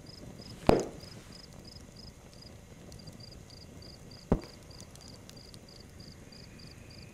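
Cricket chirping steadily at about three to four chirps a second, broken by two sharp thumps about three and a half seconds apart; the first comes as a chant book is snapped shut.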